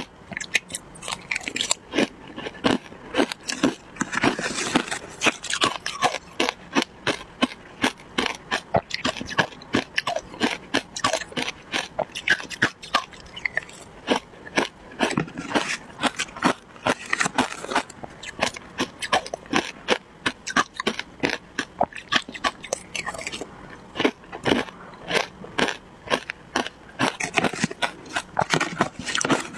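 Close crunching and chewing of shaved ice coated in matcha, a dense run of rapid crisp crackles, with a metal spoon scraping the plastic tub now and then.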